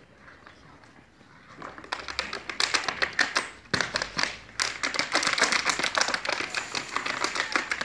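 Empty plastic water bottle crinkling and crackling in quick, irregular clicks as it is squeezed and shaken. It starts about two seconds in and breaks off briefly near the middle.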